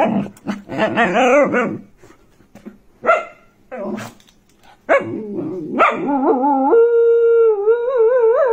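Finnish spitz vocalizing: warbling yowls for the first two seconds, two short barks about three and four seconds in, then a long held howl from about five seconds in that wavers near the end.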